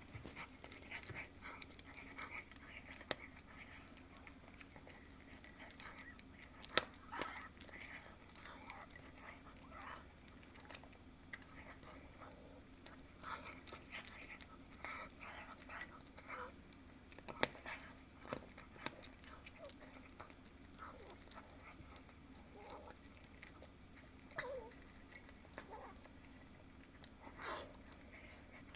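A cat eating, with irregular small clicks, crunches and smacks of chewing and licking; the sharpest clicks come about a quarter of the way in and just past halfway.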